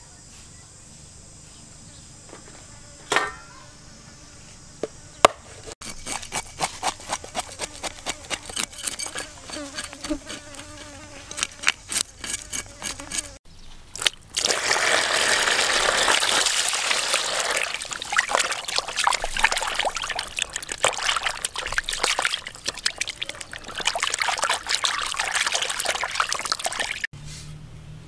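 Water splashing and trickling as a gutted fish is washed in a plastic basin of water, taking up the second half. Before it come rapid clicks and scrapes, and a couple of single sharp clicks near the start.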